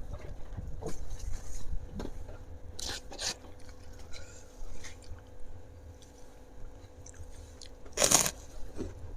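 A person biting and chewing crunchy food, with scattered small crunches and two sharp, louder crunches, one about three seconds in and one near the end.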